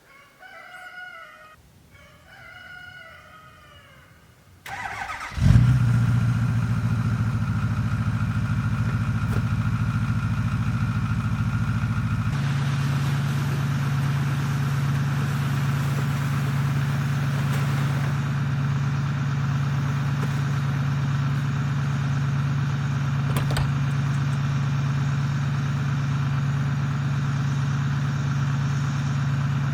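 A vehicle engine starts about five seconds in, then runs steadily, settling into an even idle about seven seconds later.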